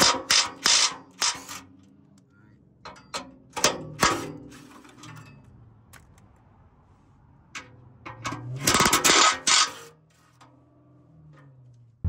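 Cordless impact driver backing out the heat-shield bolts, in several short bursts of hammering with pauses between them, the loudest burst about nine seconds in.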